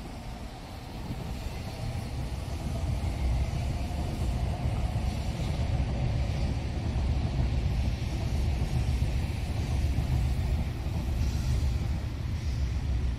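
Shinkansen train running past on the platform tracks: a loud, low rumble that swells over the first couple of seconds and then holds steady.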